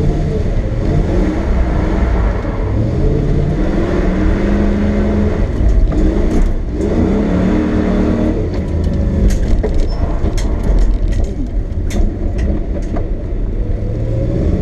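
Lexus SC400's 1UZ V8 engine revving up and easing off, twice climbing in pitch as the car accelerates, with scattered clicks and knocks over the top.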